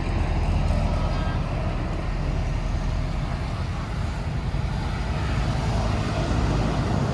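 Steady, even background rumble, heaviest in the bass, with no distinct event standing out.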